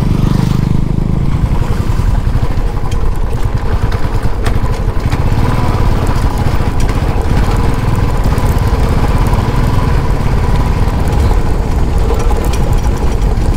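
Motorcycle engine running steadily as the bike is ridden along a road, with a dense low rumble and no let-up.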